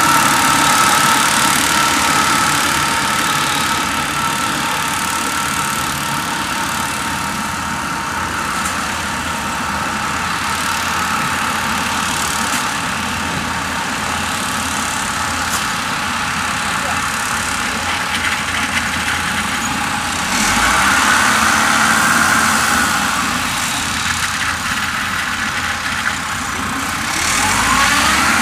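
Engines of small tracked rice-carrying vehicles running steadily as they crawl over rice stubble. The engine sound swells with a higher, rising note about three-quarters of the way through, and again near the end.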